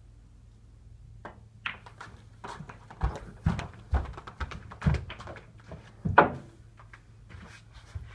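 A run of knocks and thuds around a snooker table as a shot is played and the player walks round it. The sharper clicks come a little over a second in, and a series of dull thuds about half a second apart follows, the loudest about six seconds in.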